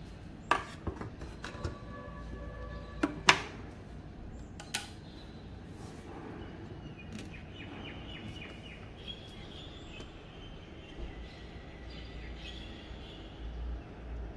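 Metal inner pot being set into a Panasonic rice cooker and the lid shut: several sharp clunks, each with a brief metallic ring, in the first five seconds.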